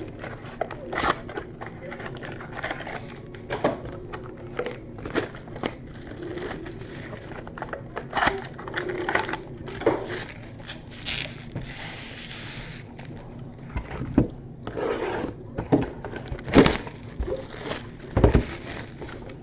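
Trading card packs being opened and handled: wrappers crinkling and tearing, with many small clicks and rustles of cards. There are a few heavier knocks on the table late on.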